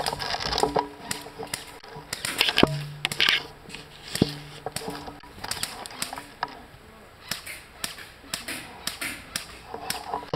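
Airsoft guns firing, sharp snapping shots at irregular intervals that come more often in the second half, with faint distant voices.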